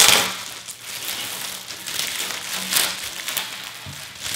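Plastic wrapping crinkling and rustling as a wrapped fishing rod is slid out of a cardboard shipping tube, in irregular bursts, loudest right at the start.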